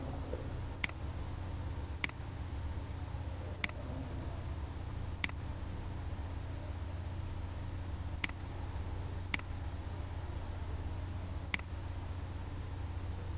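Seven sharp computer mouse clicks, one to three seconds apart, over a steady low hum.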